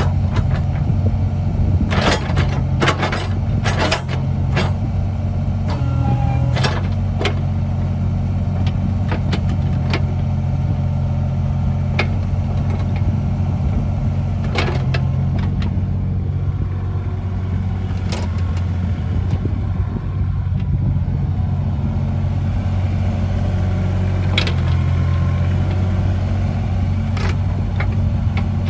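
Hitachi EX35U mini excavator's diesel engine running steadily, with sharp metal clanks and knocks, several close together in the first few seconds and scattered ones after.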